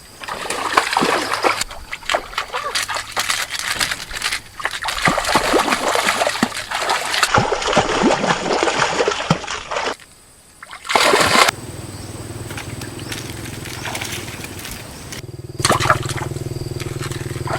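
Water splashing and sloshing in quick, irregular bursts. It breaks off briefly about ten seconds in, and after that a steady low hum runs underneath.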